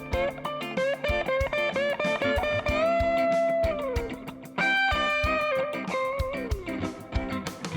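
Background music: a lead guitar playing fast melodic runs with bent notes over a steady beat.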